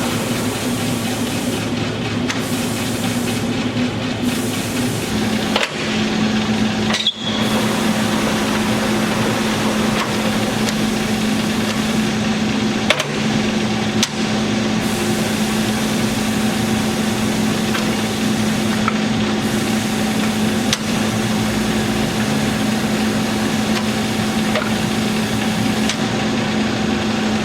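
LeBlond Dual Drive engine lathe running under power, a steady mechanical hum whose pitch steps down slightly about five seconds in. A few sharp clicks or knocks break in along the way, with a brief dip in the sound around seven seconds.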